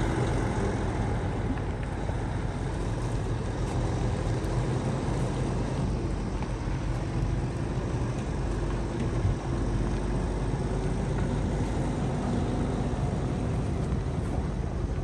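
Heavy-duty truck's diesel engine running steadily at low revs.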